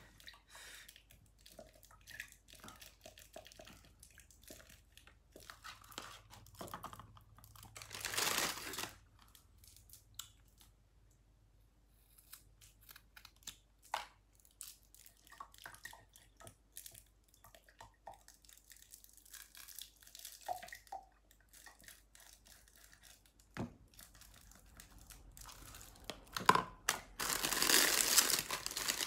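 Small paper milk cartons being snipped open with scissors and handled, heard as scattered snips and clicks with a short burst of carton noise about eight seconds in. Near the end comes a louder stretch of crinkling as the plastic wrapping of the carton pack is pulled.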